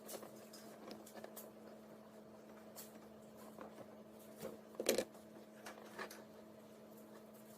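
Faint clicks and handling noise from a wire stripper cutting the outer jacket of a Cat6 UTP cable, with the sharpest click about five seconds in, over a faint steady hum.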